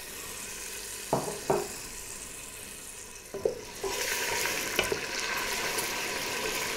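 A few sharp spoon knocks against a pot. About four seconds in, sizzling rises and carries on as jelly goes into the pot of melted lard and caramelizing sugar.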